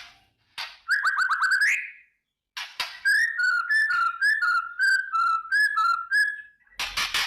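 White-rumped shama (murai batu) singing: a quick run of falling notes, then a string of clear whistled notes at about three a second, and near the end a harsh crackling rattle (kretekan).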